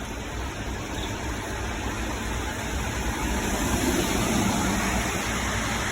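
Rain falling steadily during a thunderstorm, with a low rumble that swells about halfway through and then fades.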